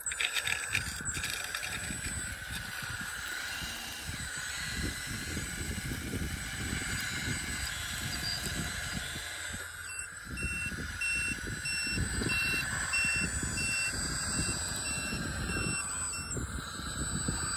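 Radio-controlled model Volvo L260H wheel loader running and working dirt, with rough mechanical drive and motor noise throughout. For about the last six seconds a reversing beeper sounds, a steady series of short high beeps about twice a second.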